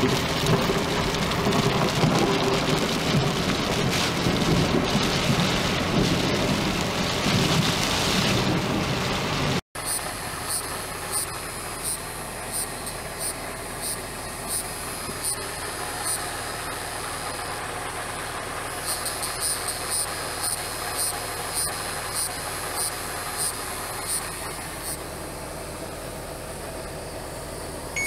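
Thunderstorm rain pouring down, heard from a vehicle on a wet road, until a sudden cut about ten seconds in. After it comes a quieter, steady background with short high chirps repeating about twice a second.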